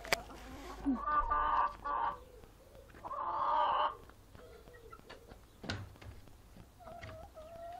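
Domestic hens clucking and calling, the loudest call about three seconds in and a drawn-out call near the end, with a sharp knock at the start and another at about six seconds.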